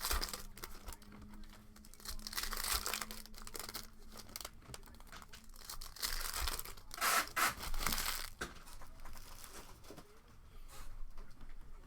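Foil trading-card pack wrappers crinkling and tearing open in several bursts, the loudest about seven seconds in.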